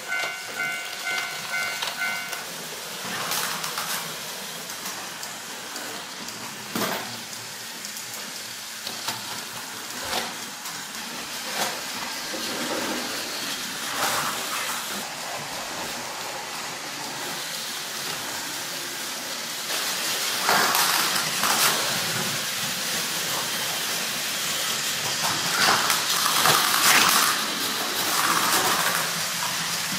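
Battery-powered Plarail toy trains running on plastic track: a steady whirring hiss of small motors and gears with scattered clicks over the track joints, louder in the second half as a train runs close by. In the first two seconds or so a toy level crossing gives a pulsed electronic beeping as its barrier arm moves.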